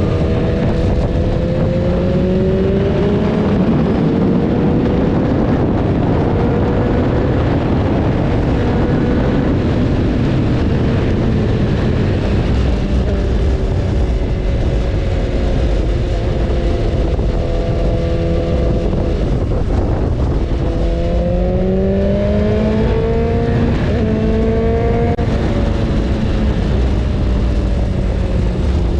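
BMW S1000RR inline-four engine running under way, heard over heavy wind and road rush. Its pitch wanders up and down, and about two-thirds of the way through it climbs several times in quick succession.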